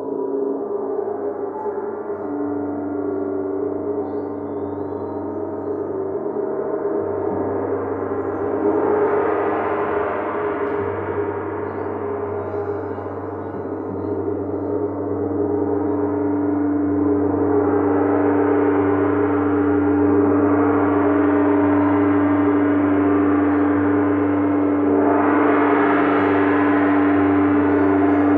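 Crystal singing bowls and gong ringing in a sustained, layered drone. A steady low tone holds throughout, and brighter swells build up about nine, seventeen and twenty-five seconds in.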